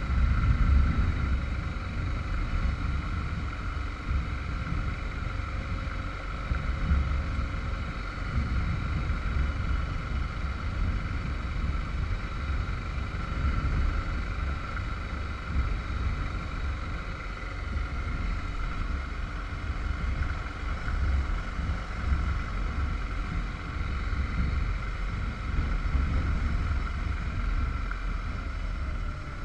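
Motorcycle on the move: wind buffets the microphone over a steady engine and road drone, with a constant hum running throughout.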